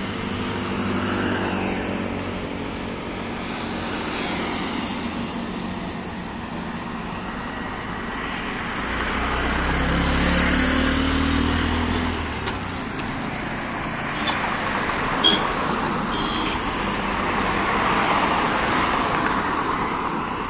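Expressway traffic passing: steady tyre and engine noise, with a heavier vehicle's engine rumbling past about nine to twelve seconds in. A few short clicks come a little later.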